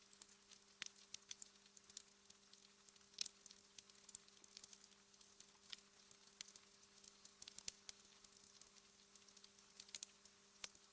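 Wood fire in a fireplace crackling: faint, irregular small pops and snaps, with one sharper crack about three seconds in.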